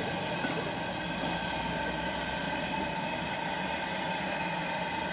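Steady engine drone with some hiss from locomotives at a station: a preserved diesel locomotive running at idle alongside steam locomotive 46443 as it moves slowly.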